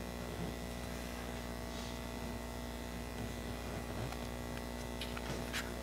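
Steady low electrical mains hum in a quiet room, with a few faint short clicks about five seconds in.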